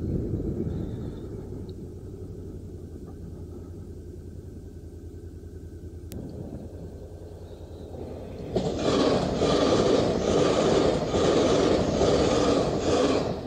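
Honda NC750X motorcycle engine running low as the bike slows, then idling quietly. About eight and a half seconds in, a passenger train passes close by with a sudden loud rushing rumble, beating about two to three times a second, which stops abruptly just before the end.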